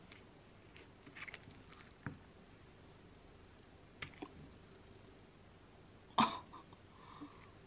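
Wooden spoon scooping soft steamed egg out of a glass bowl: a few light taps and scrapes of the spoon against the glass, the loudest about six seconds in.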